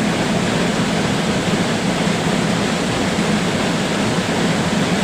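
River water rushing, a steady, unbroken noise.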